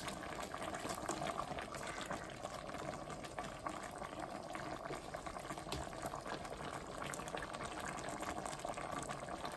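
Spicy red braised-chicken stew bubbling at a simmer in a stainless steel pot, a steady bubbling as the sauce reduces.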